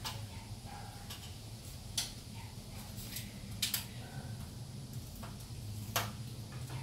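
A few sharp taps and clicks, roughly two seconds apart with one doubled, from a capuchin monkey's hands and feet on the rails and steps of an aluminium stepladder as it climbs. A steady low hum runs underneath.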